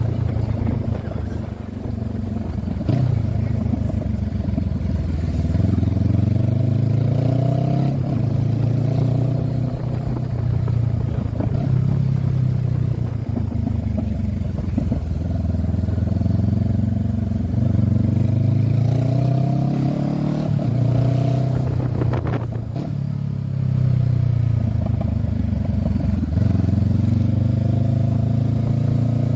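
2023 Honda CB500F's 471 cc parallel-twin engine running under way, its revs climbing and then dropping several times as it pulls through the gears.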